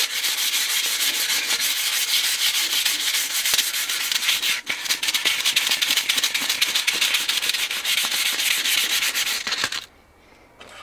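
Sheet of 220-grit sandpaper held in the hand and rubbed quickly back and forth along a walnut rifle stock: a steady scratchy hiss of strokes, a light finishing pass with the grain. It stops abruptly near the end.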